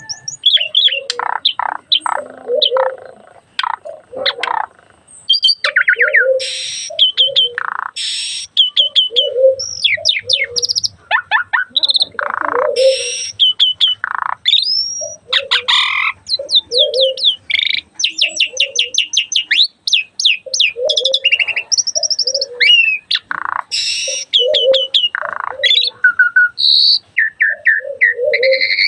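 A starling (jalak) singing a long, varied song of whistled glides, rapid runs of repeated notes and harsh rasping bursts, with short low notes recurring beneath.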